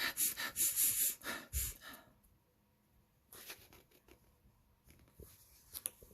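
A person sniffling, a quick run of breathy sniffs that stops about two seconds in, acting out the flea's sniffle. A faint rustle follows near the middle.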